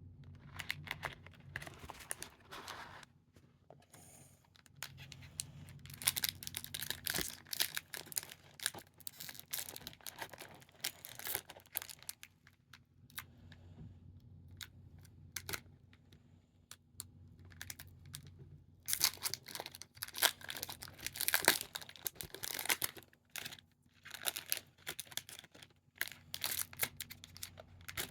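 Trading card pack wrappers being torn open and crinkled by hand, in several spells of tearing and crackling with short pauses between.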